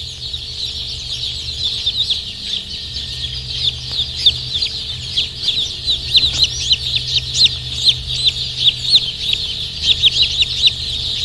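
A crowd of baby chicks peeping together: a dense chorus of short, high, downward-sliding peeps, over a low steady hum.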